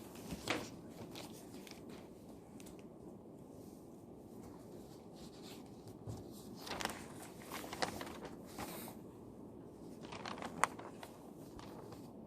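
Faint quiet-room tone with scattered rustles of paper being handled at a study desk, a cluster of them in the middle, and one sharp small click near the end.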